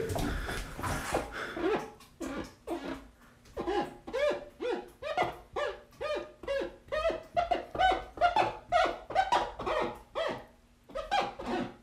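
Fingertips squeaking across fogged glass: a long run of short pitched squeaks, about two a second, each one gliding in pitch, with a quick cluster of squeaks near the end.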